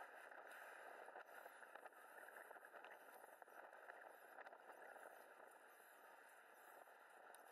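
Near silence: a faint, even hiss with a few soft ticks.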